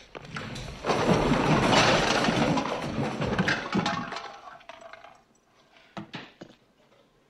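A loud crash of breaking glass and clattering objects that dies away over about three seconds, followed by two or three small clinks near the end.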